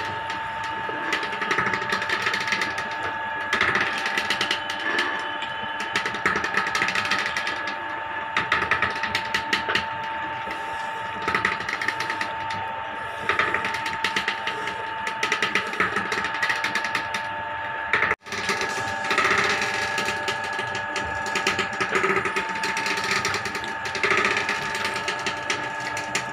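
Wooden ghani oil mill (chekka ganuga) running as its pestle churns seed paste in the mortar: a constant machine hum with continual clicking, creaking and rattling. The sound drops out for a moment about two-thirds of the way through.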